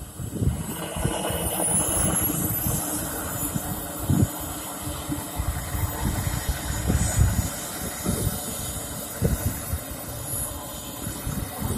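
Evojet 220 model jet turbine whining at taxi power. Its thin high whine rises in pitch over the first few seconds, then holds steady, while wind buffets the microphone.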